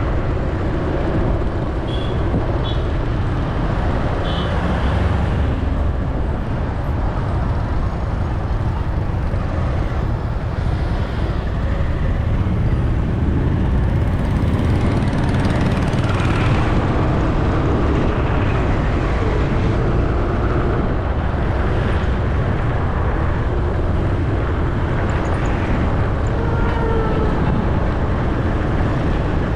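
Steady, loud road and traffic noise heard while riding along a city road: a continuous low rumble of engine and road noise with other vehicles around.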